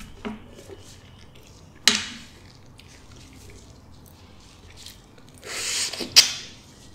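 Soft, ripe custard apple being pulled apart by hand, with a sharp wet click about two seconds in. Near the end comes a hissing slurp as flesh is sucked off a piece of the rind, closing with a sharp smack.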